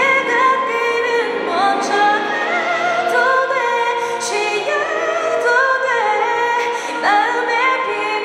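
A woman singing a slow ballad live into a handheld microphone, with a string orchestra accompanying. The melody moves in smooth glides between held notes.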